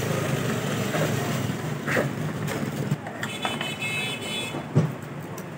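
Street traffic with a vehicle engine running close by, a few short metal scrapes from a hand file working a key blank in a vise, and a knock near the end.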